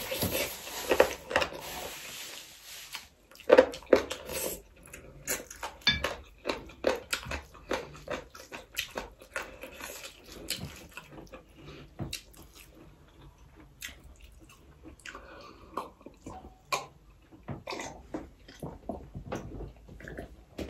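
A person chewing a mouthful of rice and curry, with many short, wet mouth clicks and smacks.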